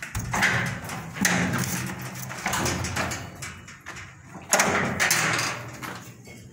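Steel electrical panel cabinet door being opened and handled: a series of sheet-metal rattles, scrapes and knocks, the loudest about four and a half seconds in.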